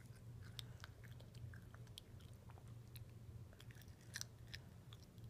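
A toddler chewing a mouthful of bunny-shaped snacks: faint, irregular crunching and mouth clicks.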